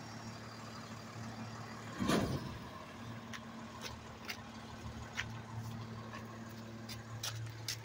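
Diesel engine of a side-loading recycling truck running, a steady low hum, with a short louder burst of noise about two seconds in and a few light clicks later on.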